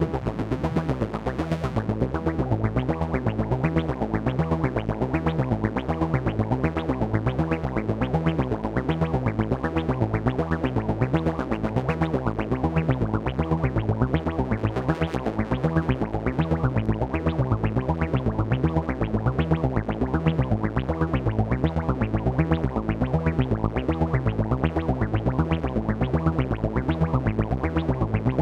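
AnalogFX SER-2020 analog synthesizer playing a fast, evenly repeating pattern of short notes, with a stepping bass line under a steady held tone.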